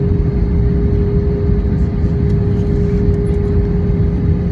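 Cabin noise inside an Airbus A321-200 around landing: a steady low rumble with a constant mid-pitched tone running through it.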